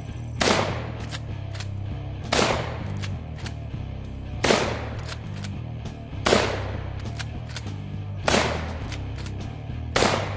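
Black Aces Tactical Pro Series L lever-action 12-gauge shotgun fired six times, about two seconds apart, with fainter clicks of the lever being cycled between shots. Background music plays underneath.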